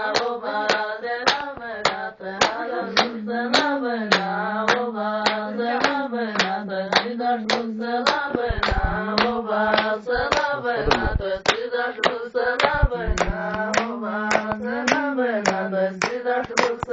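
A voice singing a melodic line over steady rhythmic hand-clapping, about three claps a second. A few dull low thumps come in around the middle.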